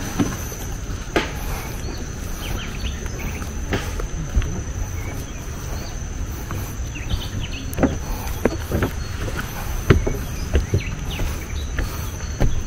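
Steady high-pitched insect drone with scattered footsteps on wooden stairs and a constant low rumble.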